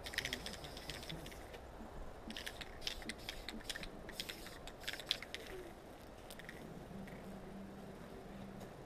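Aerosol spray-paint can being shaken, its mixing ball rattling in quick clicks in several short bouts during the first five seconds.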